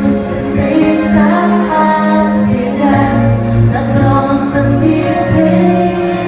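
Live amplified pop song with a woman singing over the backing band, recorded close to a PA speaker, so the sound is loud and poorly balanced.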